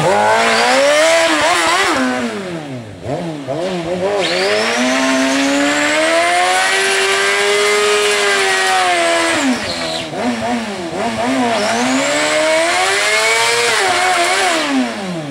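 Kawasaki ZX-6R 636's inline-four engine revving hard through a stationary burnout, its rear tire spinning against the asphalt. The revs climb and hold high for several seconds, dip briefly, climb and hold again, then fall near the end.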